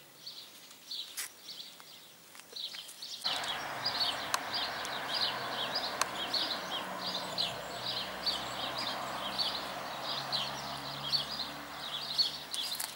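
A small bird chirping over and over, short high chirps at about three a second. About three seconds in, a steady rushing background noise comes in suddenly beneath it.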